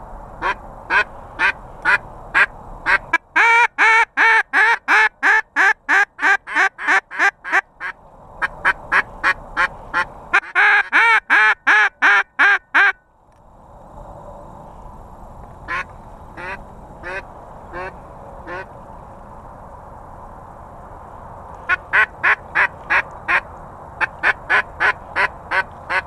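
A mallard duck call blown in runs of quacks, about four a second in long cadences, with a quiet stretch of a few softer single quacks in the middle.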